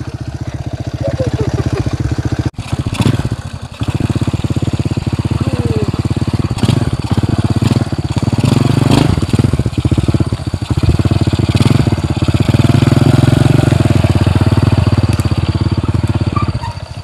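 Small motorcycle engine running under load as the bike rides a rough dirt track, getting louder and working harder in the second half.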